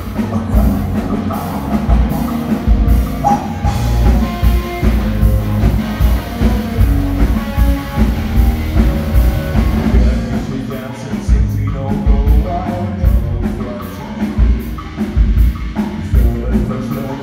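Rock band playing live: electric guitars and a drum kit with a steady beat, and a male singer's vocals. A fast, even cymbal pattern comes in about halfway through.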